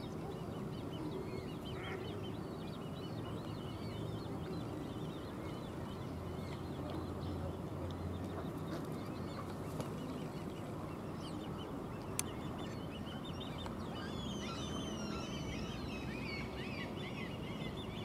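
Great crested grebe chick begging for food: a faint, rapid run of high-pitched piping calls that grows busier near the end, over steady low background noise. A sharp click about twelve seconds in.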